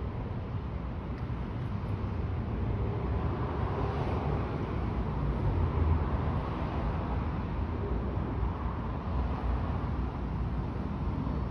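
Twin-engine widebody jet airliner passing overhead: a steady rumble of its engines that grows a little louder midway through.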